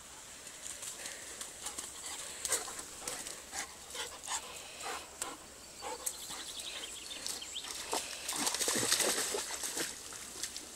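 Old English sheepdog moving about in a muddy stream: short sounds from the dog about two a second, then a louder stretch of splashing about eight seconds in as it stands in the water.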